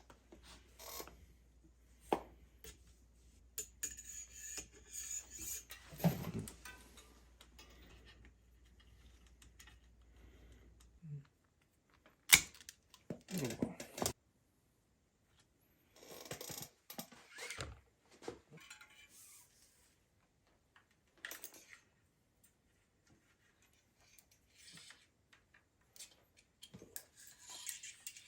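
Intermittent clinks, knocks and rustles of small metal tools and bicycle parts being handled, with one sharp click about twelve seconds in.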